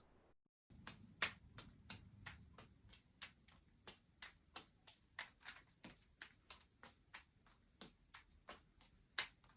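Balls being caught by hand while juggling: a quick, uneven run of faint soft taps, about four a second.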